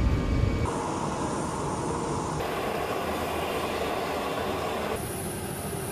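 Steady engine and airflow noise of a Boeing C-17 Globemaster III four-engine turbofan cargo jet in flight. The noise changes tone abruptly about a second in, about two and a half seconds in and again near the end.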